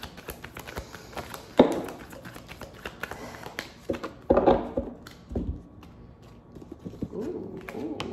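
Tarot cards being shuffled and handled, a quick run of small flicks and taps, with two louder knocks of cards on the table about one and a half and four seconds in.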